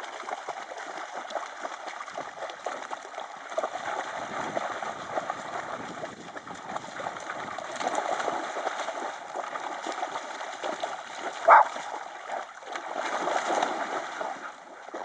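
Dogs, German shepherds and a smaller dog, splashing as they wade and run through shallow water, with constant choppy splashing. About eleven and a half seconds in comes one short, loud dog bark.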